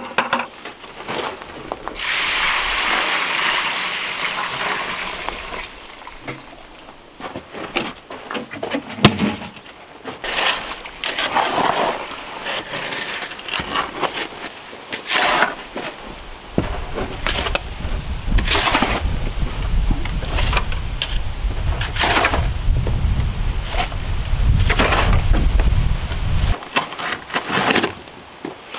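Water pouring from a plastic bucket into a tub of dry concrete mix, then a shovel scraping and chopping through the concrete in the plastic tub, stroke after stroke at an uneven pace. A low rumble runs under the mixing for about ten seconds in the second half.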